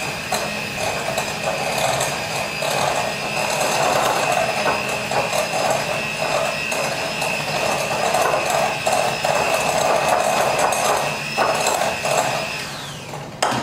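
Electric hand mixer running steadily with a whine and a rattly churn, its beaters working an egg into the cake batter in a glass bowl. Near the end the motor is switched off and its pitch falls as it winds down.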